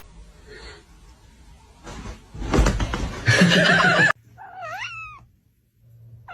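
About two seconds of loud rustling and knocking, then a domestic cat meows once, a drawn-out call rising and then falling in pitch.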